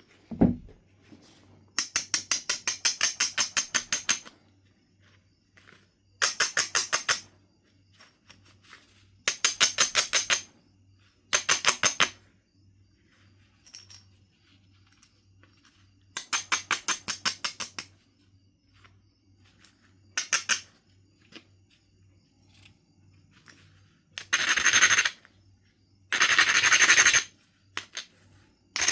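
Stone tool work on Knife River Flint: a single low thump just after the start, then repeated bursts of quick, rapid scraping strokes of stone on stone, each lasting a second or two, typical of abrading the flint's edge to prepare platforms.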